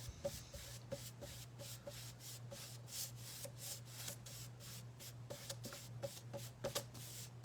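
Paintbrush scrubbing acrylic paint back and forth on a flat canvas artboard, blending the colours in faint, even strokes of about three a second.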